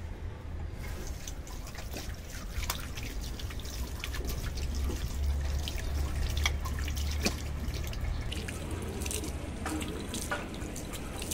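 Water running from a washbasin tap, splashing and dripping as hands are rinsed under the stream, with many small sharp splashes throughout.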